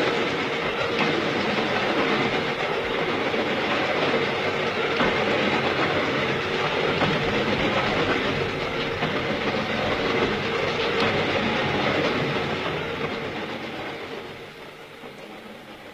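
A train running along the rails, steady for most of the time and then fading away over the last few seconds.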